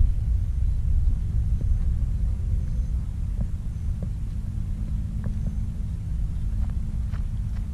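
Low, steady rumble of wind buffeting the camera's microphone, with a few faint clicks in the second half.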